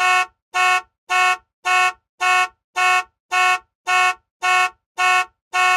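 Car alarm going off: short, horn-like blasts of one steady chord, evenly spaced at about two a second.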